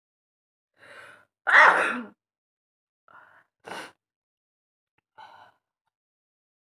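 A woman sneezes twice, loudest about a second and a half in and again, shorter, just before four seconds in. Each sneeze comes right after a quieter sharp intake of breath, and a short breath follows about five seconds in. The sneezes are set off by a twist of rolled paper pushed into her nostril.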